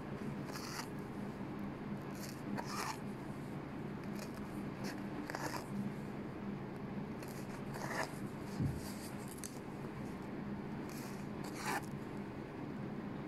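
Embroidery thread drawn through felt with a sewing needle, passed under each chain stitch to wrap it: short swishes every two to three seconds, over a steady low hum.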